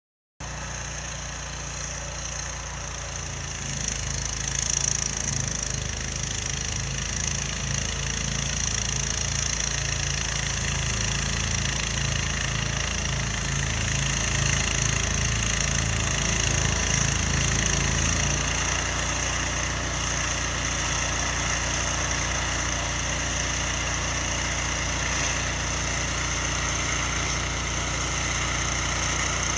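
1969 John Deere 140 garden tractor's single-cylinder engine running steadily while clearing snow, with a constant hiss above it; the engine's low beat changes and evens out about 18 seconds in.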